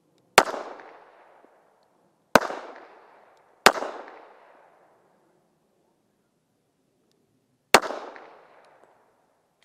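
Four pistol shots from an M1911 fired one-handed, each report trailing off for about a second. The first comes near the start, the next two about two seconds and then a second apart, and the last after a pause of about four seconds.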